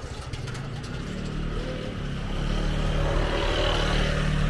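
A motor vehicle's engine running close by, a steady low hum that grows louder from about a second in.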